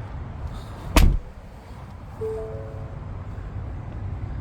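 Ford F-150 Lightning door shutting with a single heavy thump about a second in. About a second later the truck gives a brief electronic chime of a few overlapping tones.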